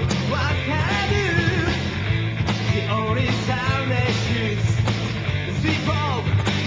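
Recorded 1980s Japanese rock music: a full band with a lead melody that wavers up and down in pitch over a dense, steady backing, punctuated by a few sharp hits.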